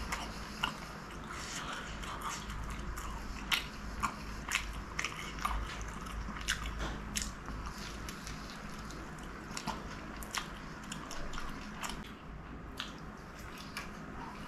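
Close-miked biting and chewing of a crispy fried chicken samosa: the pastry gives irregular sharp crunches, thickest a few seconds in and again near the end, between quieter chewing.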